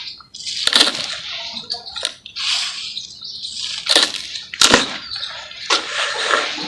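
Wet charcoal paste being squished and crumbled in a bowl: a run of moist, gritty squelching and crunching, with a few sharp cracks, the loudest about four and five seconds in.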